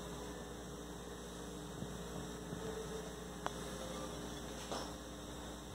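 Low steady electrical mains hum under faint room noise, with two faint ticks partway through.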